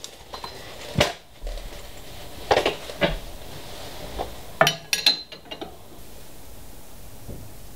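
Wrench clinking and knocking on the tilt bolt of a drill press's cast-iron table as the table is loosened and tilted to a new angle: a handful of sharp metallic clinks at uneven intervals, the loudest pair a little past halfway.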